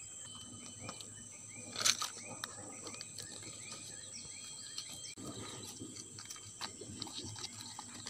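Outdoor background of a steady high-pitched insect drone, with a short chirping call repeated about twice a second through the first half. A brief loud rustle about two seconds in, and small clicks and taps of a plastic cup being handled.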